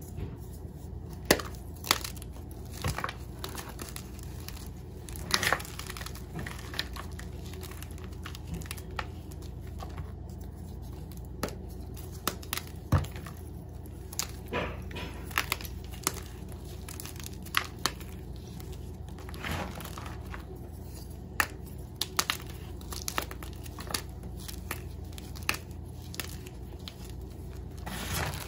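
Blocks of Ader gym chalk crushed and crumbled by hand in a bowl: irregular dry crunches and crumbling, with occasional sharper snaps as chunks break.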